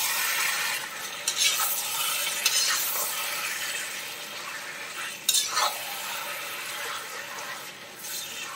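Flat metal spatula stirring raw chicken pieces and onions in a heavy iron kadai, over a steady sizzle of oil. A few louder scrapes of the spatula against the pot come through.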